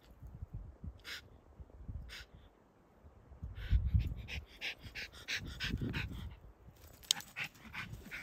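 A Schipperke dog panting in quick, short breaths, with dull low rumbles about four and six seconds in.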